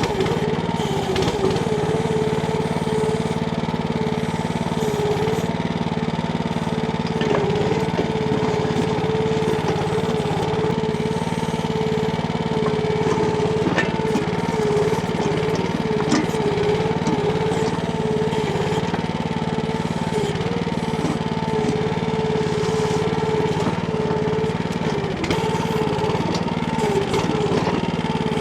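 Small petrol engine of a Timco ATV-570R towable backhoe running steadily at constant speed, with a wavering tone over it and occasional short clicks and knocks.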